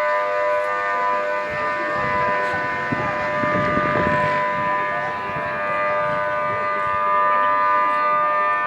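Flood warning siren sounding a steady, unwavering tone made of several pitches at once, held without rising or falling: the alarm for floodwater on its way.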